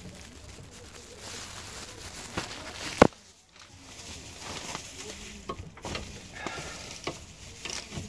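Hand tools working on a car's front brake caliper and carrier: scattered light clicks and knocks, with one sharp knock about three seconds in.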